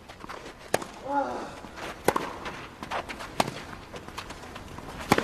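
A small dog playing with a tennis ball on a couch: several sharp thumps about a second apart as the ball and the dog's pounces hit the cushions, with soft scrabbling between and a brief vocal sound about a second in.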